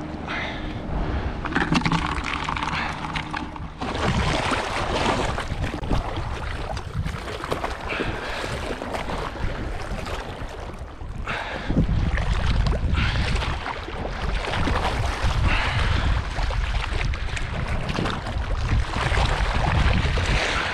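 Wind gusting over the microphone in uneven low rumbling buffets, heavier in the second half. A low steady hum is heard for the first few seconds and stops abruptly about four seconds in.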